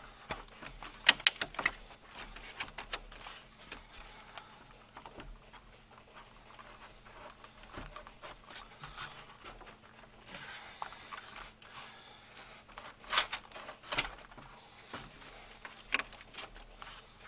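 Quiet, irregular clicks, scrapes and light knocks of hands working a rubber aftermarket upper radiator hose onto its fitting in an engine bay, a hose that will not seat properly. A short cluster of clicks comes about a second in and a few louder knocks come about three-quarters of the way through.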